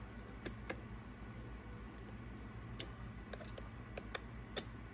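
Small hex driver working the screws of an aluminum beadlock ring on an RC crawler wheel, tightened a little at a time: scattered sharp clicks at uneven spacing, over a low steady hum.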